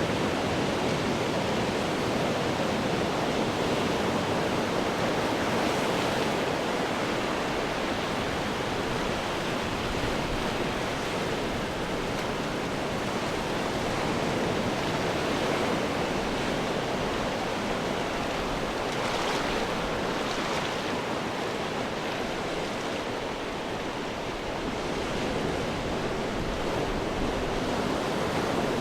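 Ocean waves breaking on rocks: a continuous wash of surf that swells and eases gently, with a slight lull about three-quarters of the way through.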